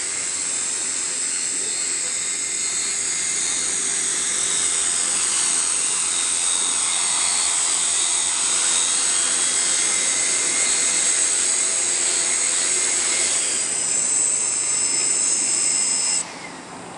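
Multirotor crop-spraying drone with a 5-litre tank, its motors and propellers making a steady high whine with shifting pitch, which cuts off suddenly near the end.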